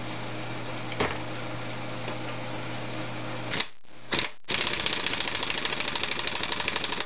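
Air impact wrench, turned down well below its full power, tightening an engine's flywheel nut. Two short blips on the trigger, then a run of rapid hammering for about two and a half seconds as the nut snugs down.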